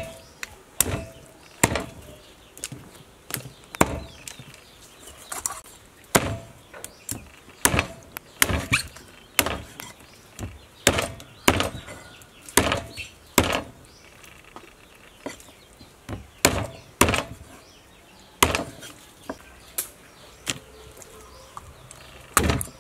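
A heavy kitchen knife chopping raw chicken into pieces on a round wooden chopping block. The sharp chops come unevenly, about one or two a second.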